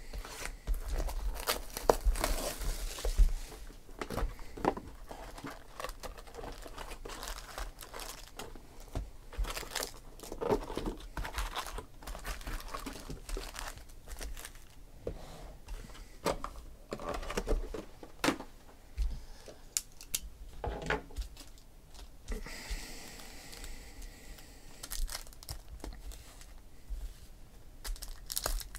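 Foil wrappers of Panini Optic football card packs crinkling and crackling in irregular bursts as the packs are handled and torn open, with a longer hissing rip about three-quarters of the way through.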